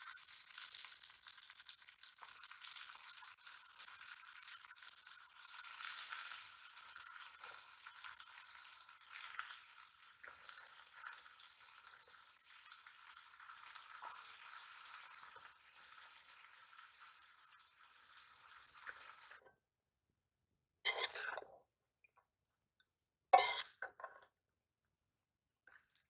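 Chopped spinach hitting hot oil in a steel wok and sizzling, a steady hiss that slowly fades over about twenty seconds. Near the end come two short, loud scrapes and clinks of a metal spatula against the pan.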